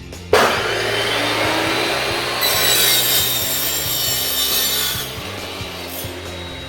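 Power tool cutting or grinding metal, starting abruptly about a third of a second in, getting harsher for a few seconds in the middle, then easing off.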